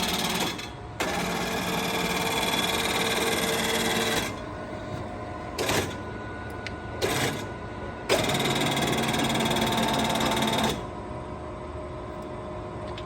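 Poreba TPK90 engine lathe running in spells: a steady machine whine with several held tones comes on for a few seconds twice, dropping back to a lower hum in between, with a couple of short clunks in the gap.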